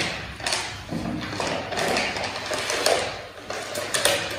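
Paper rustling and crinkling in uneven swells as a long strip of paper is rolled up by hand on a table.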